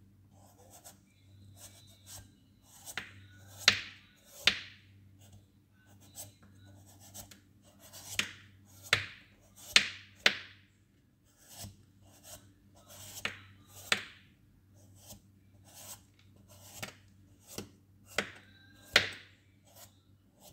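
Kitchen knife shaving the skin off a papaya, a run of irregular short scraping strokes, a few of them sharp and loud, over a faint steady low hum.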